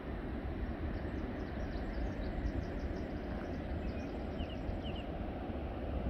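Steady noise of ocean surf, with wind rumbling on the microphone. A small songbird gives a quick series of high chirps through the first half, then a few paired chirps near the end.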